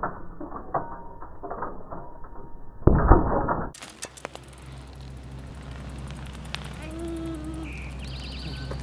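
A bicycle being ridden and hopped on asphalt: quick mechanical clicks and creaks, with the loudest stretch about three seconds in as its tyre rolls right past.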